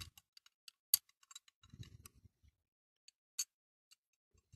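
Faint, scattered small clicks and taps from a die-cast toy car body and small tools being handled, with two sharper clicks about a second in and about three and a half seconds in.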